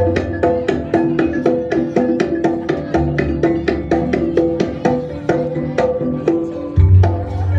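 Gamelan-style jaranan accompaniment: a fast, even run of struck, pitched metal notes at about four a second over drumming, with a deep low stroke about three seconds in and again near the end.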